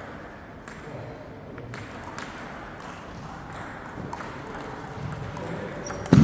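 Table tennis rally: the celluloid ball clicks sharply off the bats and the table roughly every half second, with the reverberation of a large sports hall. A loud thump comes right at the end.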